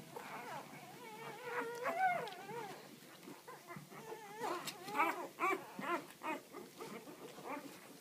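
Newborn Labrador puppies whimpering and squealing. Several high, wavering cries overlap, with shorter, sharper cries in the second half.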